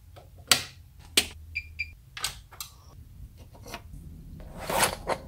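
A run of sharp clicks and knocks, the first and loudest a rocker power switch being flipped on a Weller soldering station. Two short high electronic beeps follow about a second and a half in, and near the end comes a brief rustle with two more clicks.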